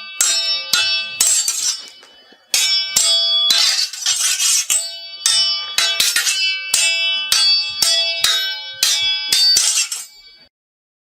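Sword blades clashing: a quick series of metallic clangs, about two a second, each ringing on briefly. There is a short lull about two seconds in, and the clangs stop shortly before the end.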